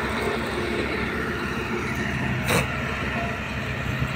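Diesel engine of road-building machinery, the tractor pulling the water tanker or the road roller, running steadily with a low rumble. A brief sharp noise cuts in about two and a half seconds in.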